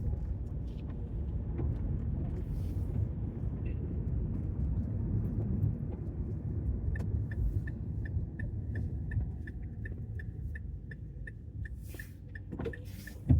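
Steady low road and engine rumble inside a moving car's cabin. From about halfway through, a car's turn-signal indicator ticks rapidly and evenly, and a short thump comes near the end.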